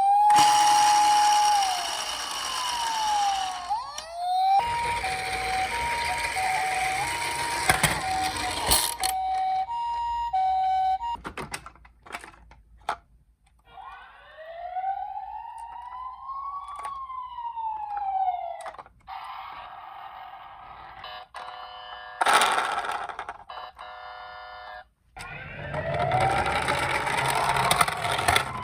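Emergency-vehicle sirens of several kinds sounding in turn: a rising and falling wail, then a two-note high-low ambulance siren, a few sharp clicks, another wail, a fast repeating warble, and a wail again near the end.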